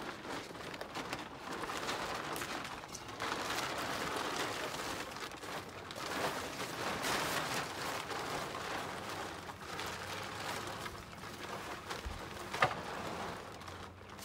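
Plastic tarp rustling and crinkling as it is dragged off a machine, with a single sharp click near the end.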